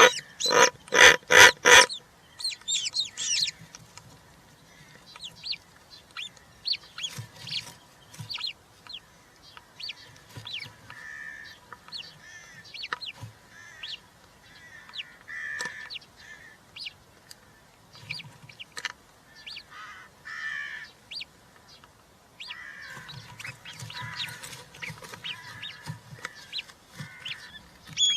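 European rollers at the nest: a loud run of harsh, rasping calls, about three a second, that stops about two seconds in, followed by scattered faint, short high chirps and soft raspy notes.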